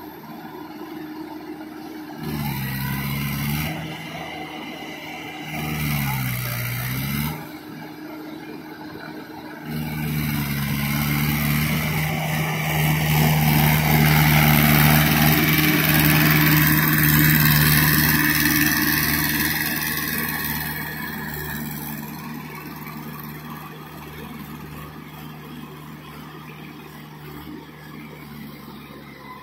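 Mahindra 475 DI tractor's four-cylinder diesel engine running under load as it pulls through deep mud. The engine note dips and recovers twice near the start, grows loudest midway as the tractor comes nearer, then fades as it moves off.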